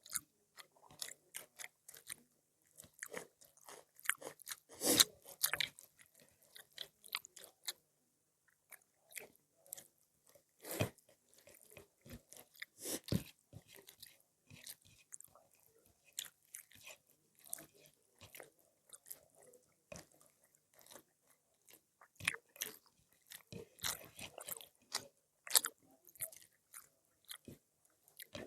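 Close-up eating sounds: a person chewing and biting food, with many short, irregular crunches, the loudest about five seconds in.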